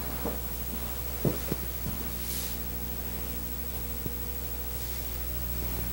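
Steady low electrical hum, with a few soft thumps and a brief rustle as hands handle cotton batting on the chair, the loudest thumps about a second in.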